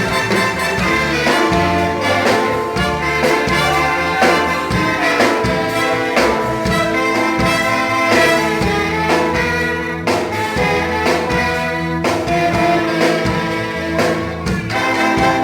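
Band and orchestra playing an instrumental passage, brass prominent over held chords, with drums keeping a steady beat.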